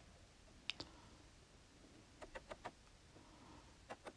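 Faint, scattered clicks of a wood chisel prying and scraping in a notch cut into a wooden deck board: one about a second in, a quick run of three a little after two seconds, and a few more near the end.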